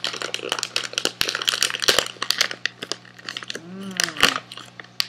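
Resealable plastic candy bag crinkling in rapid crackles as it is handled, with a short hummed voice sound about four seconds in.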